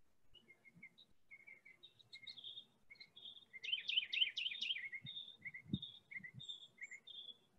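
Small songbirds chirping in short repeated notes, with a quick run of rising notes about halfway through.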